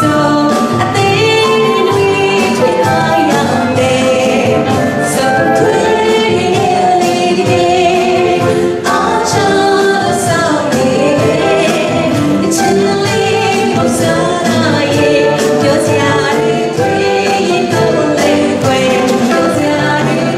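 Live band playing a song, with a woman singing lead into a microphone over a drum kit and electric guitar, the drums keeping an even beat.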